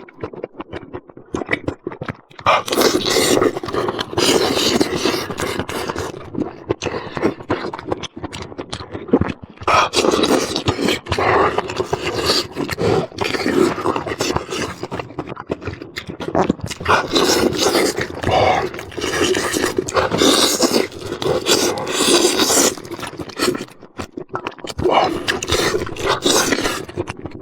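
Close-miked eating sounds: a person chewing and smacking food, with rapid wet clicks and crunches in runs of a few seconds broken by short pauses.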